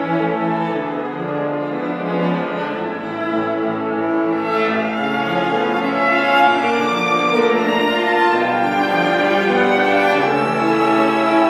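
Violin and cello playing a classical duet passage together, bowing long held notes.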